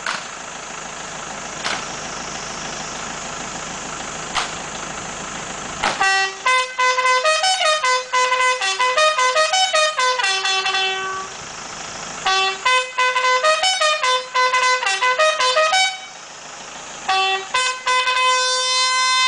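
Bugle call: a series of loud brass notes jumping up and down between a few fixed bugle pitches in short phrases, starting about six seconds in, breaking off briefly near the end and then resuming on a long held note.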